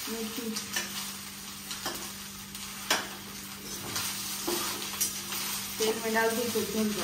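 A metal spoon stirs and scrapes chopped idli pieces in a stainless-steel pan, clinking against the pan every second or so, over a light sizzle of frying.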